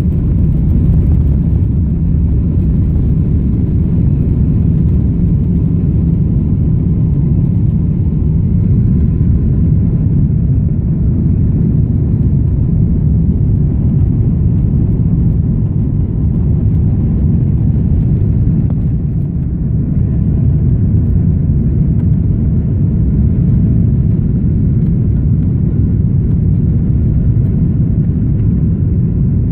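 Jet airliner cabin noise during takeoff: the engines at takeoff power and the airframe give a loud, steady low rumble that carries on from the runway roll into the climb after liftoff.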